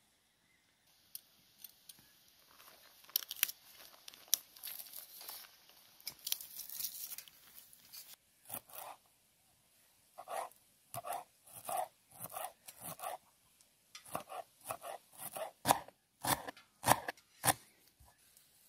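A kitchen knife chopping fresh dill on a plastic cutting board, sharp knocks in quick runs of about two or three a second that fill the second half and are loudest near the end. Before that come lighter scraping and crackling sounds.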